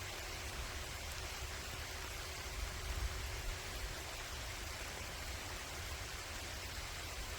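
Light rain falling steadily on an open pasture: an even hiss, with a low, unsteady rumble underneath.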